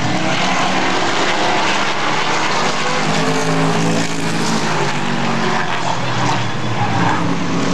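Several Super Late Model stock cars' V8 engines running at speed on the oval. Their overlapping engine notes drift slightly up and down over a steady loud drone.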